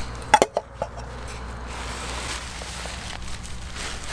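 A metal camping pot lid clinks and knocks three or four times, sharply, about half a second in, followed by plastic bag and dry leaves rustling as the spilled pot is handled on the ground.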